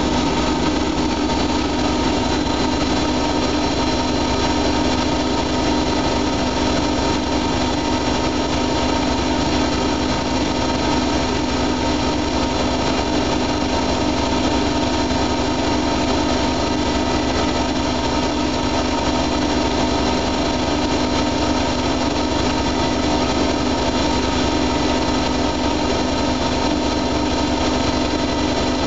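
Siemens Siwamat iQ front-loading washing machine spinning its drum: a steady motor whine over a low hum that holds without a break.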